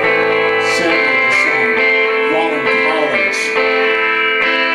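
A live rock band playing a song, with the guitar out in front holding chords, and a struck beat about once a second.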